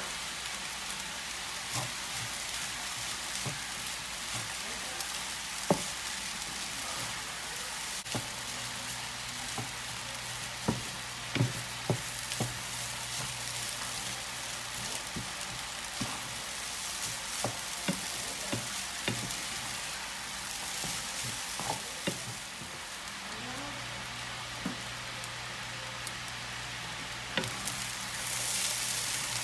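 Fried rice sizzling in a frying pan while a wooden spoon stirs and scrapes through it, with scattered knocks of the spoon against the pan. The sizzle grows louder near the end.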